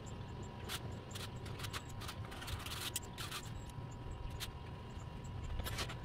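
Scattered sharp clicks and light rustling from hands working through the leaves and twigs of a potted ficus bonsai, with a dense patch of clicks about halfway through. Under it runs a low rumble and a faint steady tone.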